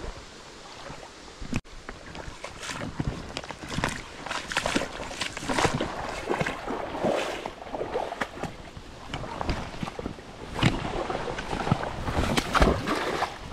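Stream water sloshing and splashing irregularly, with many short splashes, as the water is stirred up close by.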